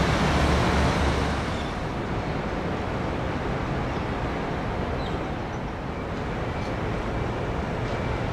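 Steady outdoor city background noise, a wash of distant traffic and machinery. It is deeper and louder for about the first second, then settles to a steadier, slightly quieter hiss.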